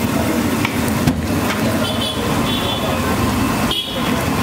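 Steady street din of road traffic with background voices.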